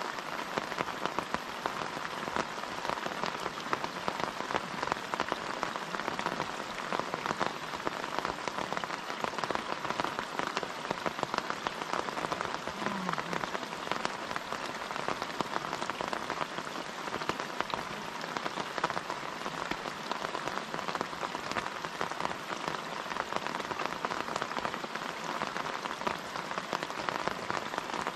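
Steady rain falling on the surface of a fishing pond, an even hiss dotted with many separate close drop ticks.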